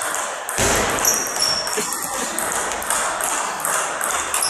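Table tennis rally: the ball ticks sharply off the bats and the table several times, with the hall's steady background noise behind it.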